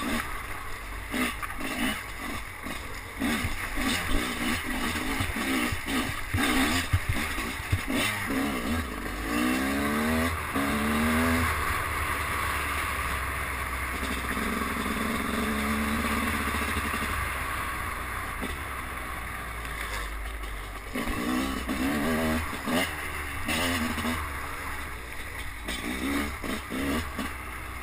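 Enduro dirt bike engine heard from the rider's helmet camera, revving up and down through the throttle and gears, with rising pitch sweeps about a third of the way in and a steadier run in the middle. Wind rushes over the camera throughout, with occasional knocks from bumps in the trail.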